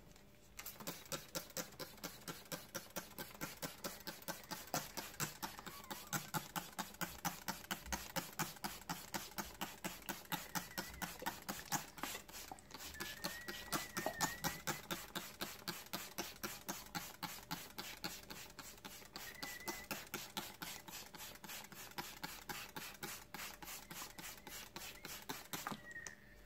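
Hand-held trigger spray bottle pumped rapidly and steadily to water a seed tray, each pull a short hiss of spray, about three a second. The spraying starts about a second in and stops just before the end.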